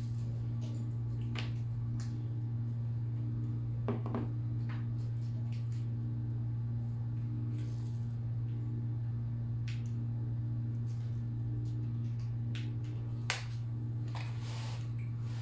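Old Seagate hard drive powered up for a ROM read: a steady low hum with a higher tone that pulses on and off about once a second, and a few light clicks.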